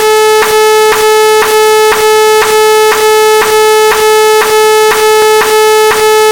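Synthesized electronic buzzer-like tone, held at one pitch and cut by a brief click-gap about twice a second, in an even repeating pulse.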